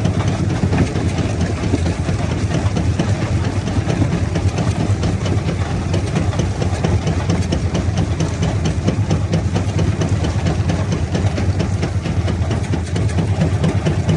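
Stone-crushing machinery, a jaw crusher plant, running steadily with a low, continuous rumble and a fine rattle.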